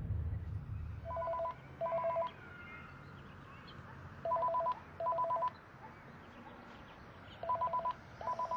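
Cordless phone ringing with a warbling electronic trill: three double rings about three seconds apart, each made of two short bursts.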